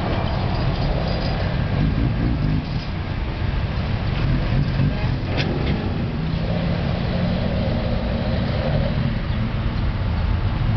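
Motor vehicle engine noise: a steady, loud low rumble with a single sharp click about five and a half seconds in.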